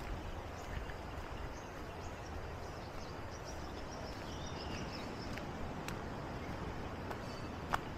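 Outdoor ambience: a steady noisy background with faint high bird chirps in the middle stretch and a few light clicks, the sharpest near the end.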